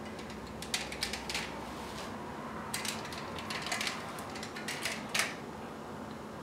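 Light, scattered crackles and clicks of crisp tortilla chips and grated cheddar being handled by hand in an aluminium foil pie tin, in small clusters of a few clicks each.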